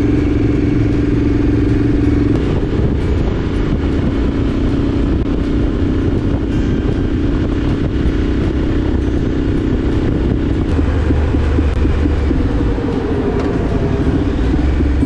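Triumph Street Scrambler's parallel-twin engine running steadily at road speed, mixed with wind and road noise. The engine note changes about two seconds in.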